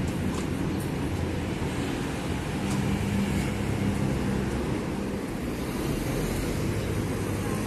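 City street traffic noise: a steady low rumble of cars and engines, with one vehicle's engine tone standing out for a couple of seconds around the middle.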